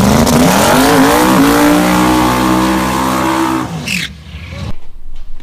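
Car engine accelerating hard, its pitch climbing with a brief dip about a second in, then holding high until it stops just before four seconds in.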